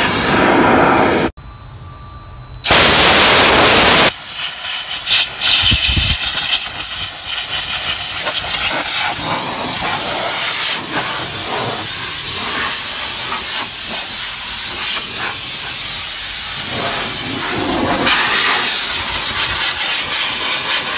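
Compressed-air blow gun blasting dust out of a truck's A/C blower housing and dashboard vents: a loud rushing hiss in blasts of varying strength, dropping away briefly about a second in before a strong blast.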